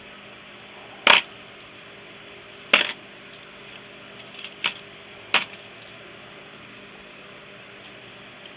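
Small metal tools clinking as they are set down into a toolbox tray: four separate sharp clinks spaced a second or two apart, with a few faint ticks between them.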